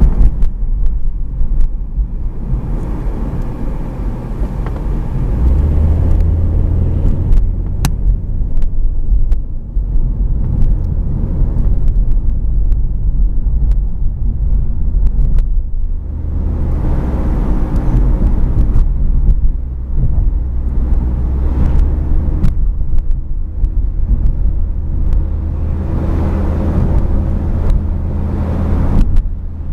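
Car running with a steady low rumble and a drone that rises and falls in waves: the abnormal noise of a worn bearing.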